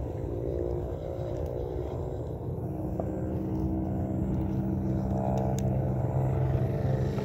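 A vehicle engine running steadily, growing slightly louder.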